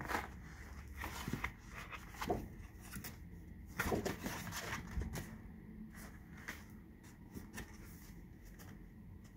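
Paper rustling and crinkling as craft pages are handled, in irregular bursts with a few light knocks. The loudest bursts come about four seconds in, and the sound thins out toward the end.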